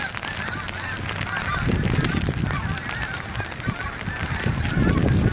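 A large flock of geese honking continuously as they fly overhead, many calls overlapping. From about two seconds in, a low rumble of strong wind buffets the phone's microphone.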